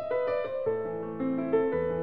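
Background piano music: a slow melody of held notes, with low bass notes coming in about two-thirds of a second in.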